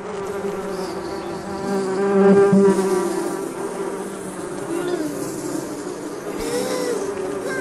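A steady, bee-like buzzing drone with a few brief wavering slides in pitch, louder for a moment about two seconds in.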